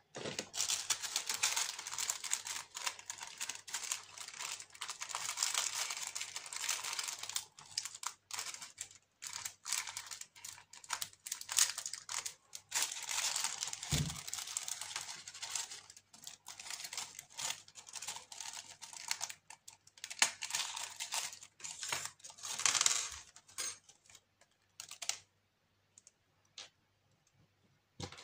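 Thin plastic packaging crinkling and rustling in the hands as small clock parts are unwrapped, a dense crackle of little clicks that thins to a few scattered clicks for the last few seconds.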